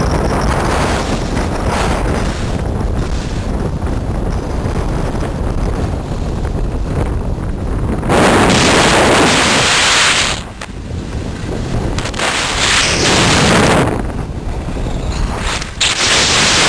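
Wind rushing over the microphone of a skier's camera during a fast downhill run, mixed with the hiss of skis on hard-packed snow. The hiss turns much louder and harsher about halfway through, eases briefly, then swells again twice.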